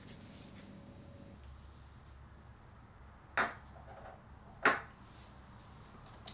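Ceramic mug and small items set down on a wooden desk: two sharp knocks about a second apart, the second louder.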